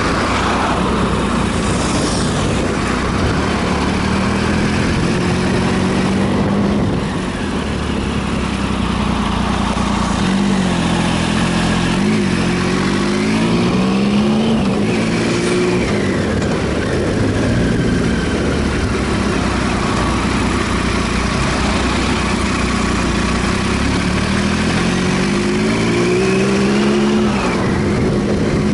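Triumph Sprint ST 1050's three-cylinder engine running under way over a steady rush of wind and road noise. The revs rise and fall a few times about ten seconds in, then climb again near the end and drop sharply.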